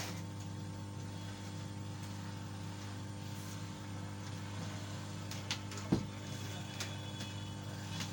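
Steady electrical hum and faint hiss of workbench equipment, with a few small clicks of tools against the board; the loudest is a sharp knock about six seconds in.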